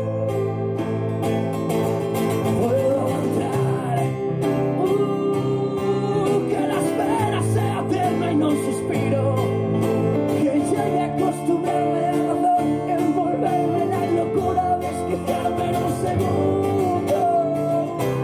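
Acoustic guitar and Nord Electro 5 keyboard playing together through an instrumental passage of a song, with a melody moving over steady chords.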